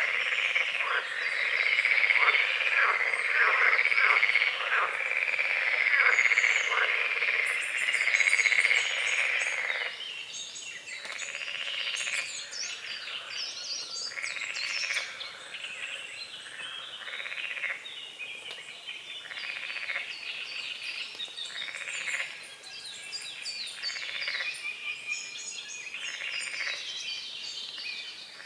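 A chorus of frogs croaking densely and loudly, which stops abruptly about ten seconds in; after that, single frogs go on croaking in short repeated calls about once a second, with songbirds singing over them.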